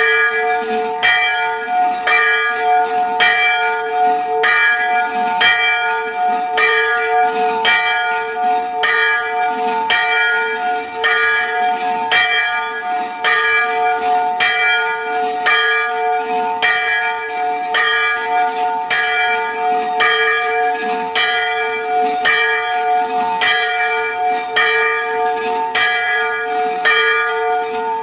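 Church bell ringing steadily, about one stroke a second. Each stroke's ringing carries on into the next, so its hum never dies away.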